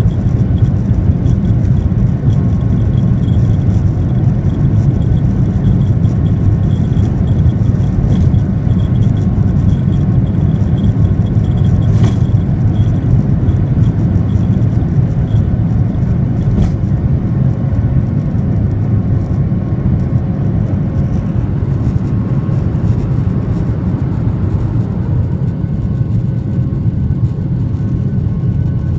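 Jet airliner's engines at takeoff thrust, heard from inside the cabin over the wing: a loud, steady low rumble through the takeoff roll and lift-off, with three brief knocks in the middle, easing slightly near the end once airborne.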